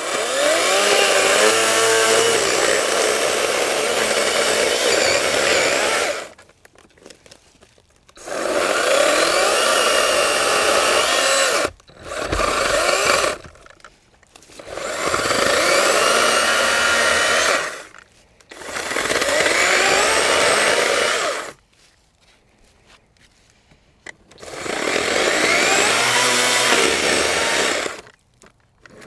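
Greenworks Digipro 16-inch 40V brushless battery chainsaw cutting into a small tree trunk in six runs of a few seconds each. Each run starts with a rising whine as the chain spins up and stops sharply, with short quiet gaps between.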